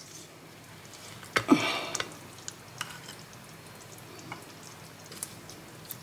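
Metal spoon spreading a thick crème fraîche sauce over a tortilla on a plate: faint wet squishing with a few light clicks of the spoon on the plate, the loudest with a short scrape about a second and a half in.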